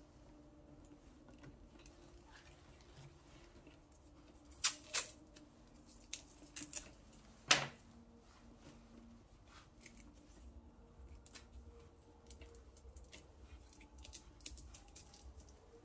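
Faint rustle of braided audio cables being handled and bundled. About five seconds in come a few sharp snaps and a louder crack as a strip of black electrical tape is taken off the roll; lighter ticks follow as the cables are wrapped.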